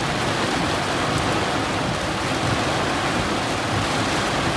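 Heavy rain pelting a car's roof and windshield, heard from inside the car: a steady, dense hiss.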